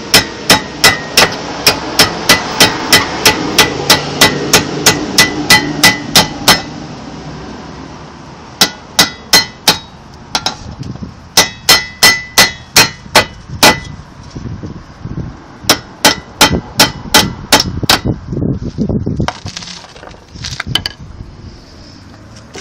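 A hammer tapping a brake pad retaining pin into a 2005 VW Touareg's rear brake caliper, with sharp metal-on-metal strikes that ring. It starts as a fast even run of about three strikes a second for six seconds or so, then goes on in several short bursts with pauses between.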